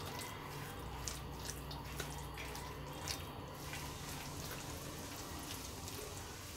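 Faint wet, sticky sounds of small chicken pieces being mixed into a thick marinade of garlic paste, sauce and cornflour in a bowl, with scattered soft ticks over a low steady hum.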